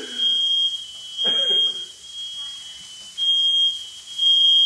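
Household smoke alarm going off: a high-pitched beep repeating about once a second, set off by smoke from stovetop cooking. A short voice cuts in about a second in.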